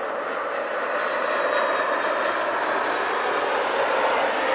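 Four jet engines of a Boeing 747 coming in to land: a steady rushing noise with a faint high whine, growing gradually louder as the airliner nears the runway.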